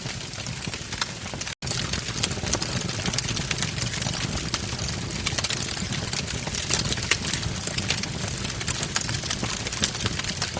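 Wood fire burning in a fireplace, crackling with many sharp pops over a steady hiss and low rumble. The sound drops out for an instant about one and a half seconds in.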